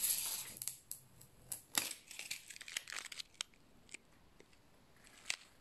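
A steel tape measure retracting with a rasping whir that fades out within the first second, followed by a few faint, scattered clicks of handling.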